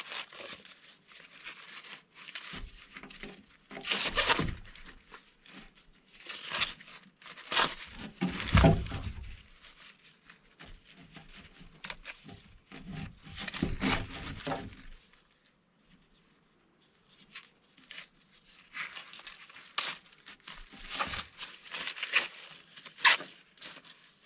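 Fresh ears of corn being husked by hand: the green husks are peeled back and torn in a series of crisp tearing and rustling strokes with short pauses between, and a brief lull about two-thirds of the way through.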